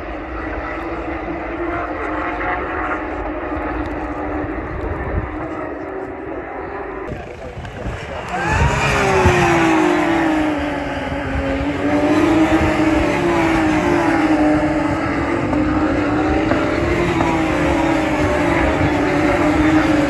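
Race cars' flat-six engines, distant and steady at first. About eight seconds in they grow loud as Porsche 911 GT3 Cup cars pass close by, the revs falling and rising repeatedly through braking, gear changes and acceleration.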